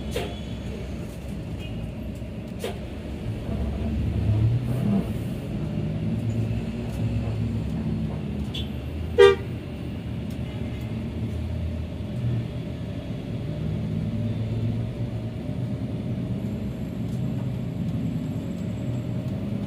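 Bus engine running in slow stop-and-go traffic, heard from inside the cabin, rising briefly about four seconds in. About nine seconds in comes one short, loud vehicle horn toot.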